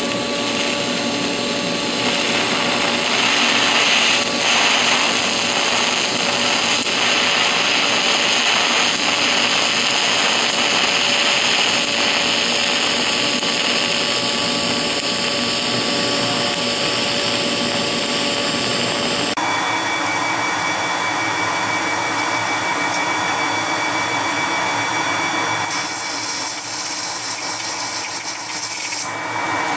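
TIG welding arc on copper, a steady hiss, until it stops abruptly about two-thirds of the way through. After that comes a steady fan-like whir with a thin high whine.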